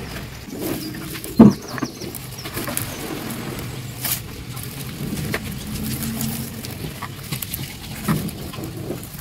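Rustling and crinkling of turmeric leaves and dry fibre strips being handled as a leaf-wrapped fish parcel is tied up, with a sharp knock about a second and a half in.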